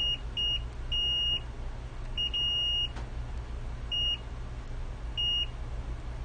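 Multimeter continuity beeper sounding six times, short high beeps of uneven length, as the probes touch capacitors around the chips on a game console board.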